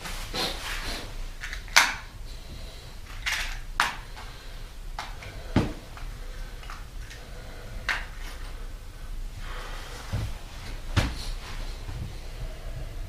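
Irregular knocks, clacks and rustles of things being handled at a wood-burning stove while it is made ready to light, about a dozen separate strikes with short scraping noises between them.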